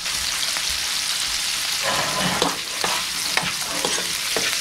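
Whiting pieces and smoked mussels sizzling in hot oil in a non-stick frying pan. About two seconds in, a utensil starts stirring them, making a run of short scrapes against the pan over the sizzle.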